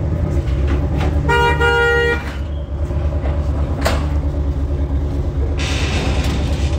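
A car horn honks twice in quick succession about a second and a half in, over the steady low rumble of car engines running.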